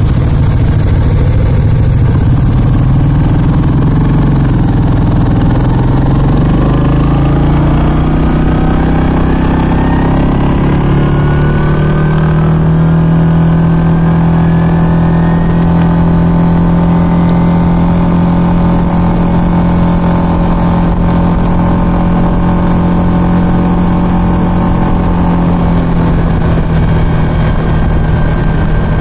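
ATV engine running under way, its pitch climbing steadily for several seconds as it speeds up, then holding an even pitch for a long stretch before it eases and changes near the end.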